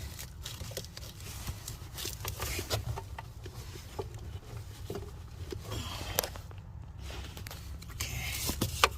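Hands working a plastic wiring connector in a car's door jamb: scattered light clicks and scrapes, with one sharp click near the end, over a steady low hum.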